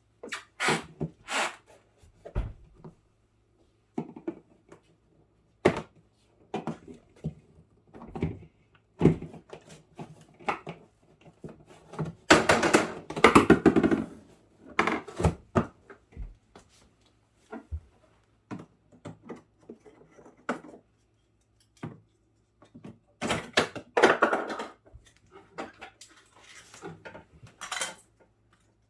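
Plastic interior parts of a refrigerator compartment being pried off and handled during disassembly: irregular clicks, knocks and rattles. There are longer stretches of scraping and rattling about halfway through and again near the end.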